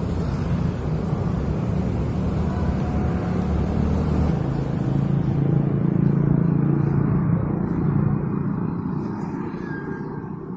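Honda GX35 four-stroke brush cutter engine running steadily, fading away near the end.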